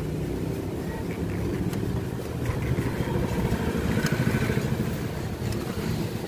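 A steady low engine rumble, with a few light plastic clicks as the vape mod's frame is handled.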